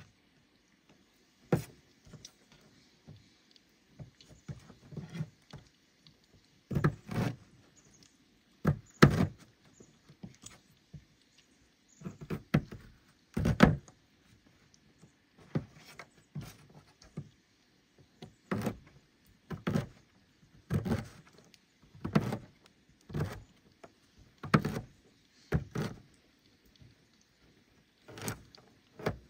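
Chef's knife chopping sweet potato on a plastic cutting board: uneven thunks of the blade striking the board, about one a second, many in quick pairs.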